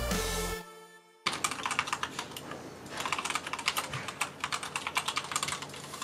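Typing on a Redragon K552 mechanical keyboard with Cherry MX Red-equivalent linear switches: a fast, uneven run of key presses that starts about a second in, after a short music tail fades out.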